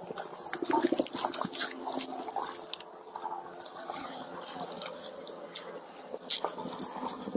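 Rustling and knocking of a body-worn camera rubbing against an officer's uniform and gear as he moves in and crouches, with many scattered sharp clicks. A brief exclamation is heard about four seconds in.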